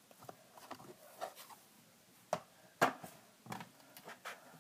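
Fingers poking and squeezing slime in a plastic tub, making a handful of short, sticky clicks and pops; the loudest comes nearly three seconds in.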